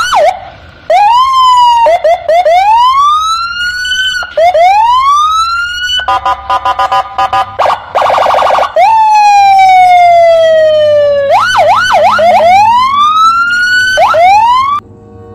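Electronic police car siren sounding loud and changing patterns: repeated rising whoops, then a few seconds of rapid pulsing yelp, then one long falling wail, then fast warbles and more whoops. It cuts off suddenly near the end.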